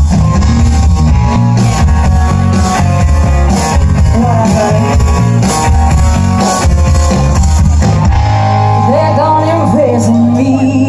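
Live rock band playing: electric guitars, bass, drums and a woman singing. About eight seconds in the drums stop and the band holds a long final chord while the singer sustains a wavering note over it, ending the song.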